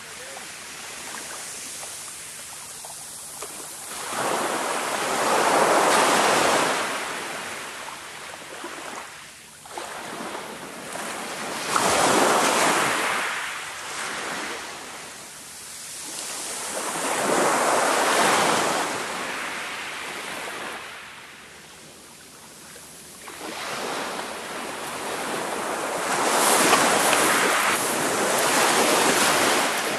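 Small waves breaking on a shingle beach and washing back over the pebbles, swelling and fading about every six seconds.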